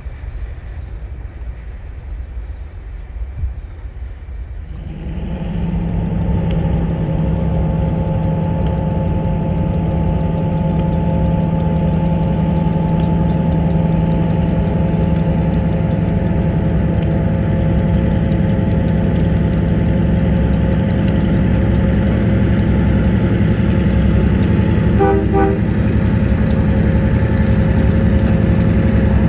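Freight train of tank cars rolling away with a low rumble. About five seconds in, this gives way to a diesel switcher locomotive's engine running steadily as it pulls covered hopper cars through a grade crossing: a loud, even hum with steady tones.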